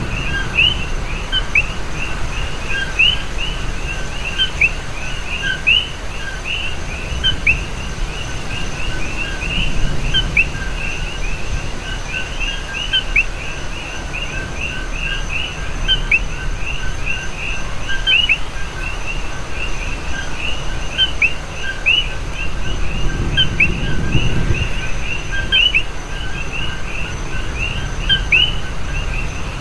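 Many small birds chirping continuously, a dense run of short falling chirps several a second, over a steady background of noise with a low rumble that swells briefly past the middle.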